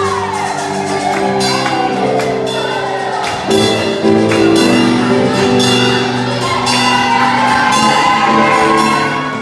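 Live worship music: voices singing over held instrumental chords, with a steady beat from drums or tambourine.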